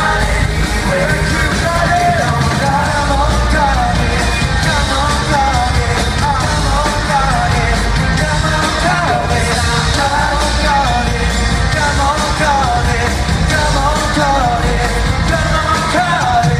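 Live pop performance heard loud over an arena PA from the audience: several voices singing a melody over a live band with a heavy, steady bass and drums.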